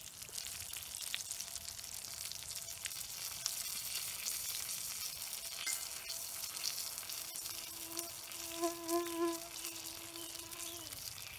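Bacon-wrapped steak still sizzling, a steady hiss with faint crackles. From about six and a half seconds in until near the end, a mosquito hums close by.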